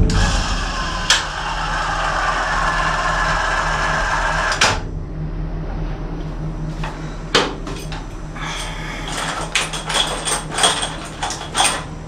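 Ryobi cordless caulking gun's motor running steadily as it pushes two-part anchoring adhesive through a mixing nozzle into a bolt hole. It stops abruptly with a click after about four and a half seconds, and scattered light clicks and clinks follow.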